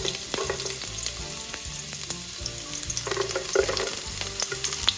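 Fresh garlic frying in hot olive oil in a pan: a steady sizzle with many small crackles and pops.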